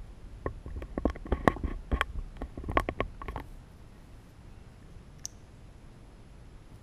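Light clicks and taps of small metal slimline pen kit parts being picked up and fitted together by hand, a quick run of them for about three seconds, then quiet handling with one more click.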